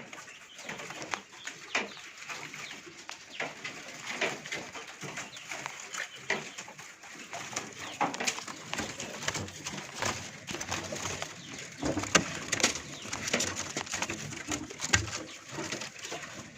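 Many caged birds calling at once, a dense overlapping chatter of short, sharp chirps and calls.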